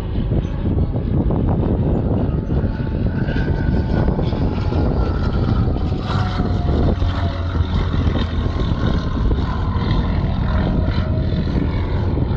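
Propeller aerobatic airplane's engine droning overhead during a display routine, its note sliding slowly downward over several seconds.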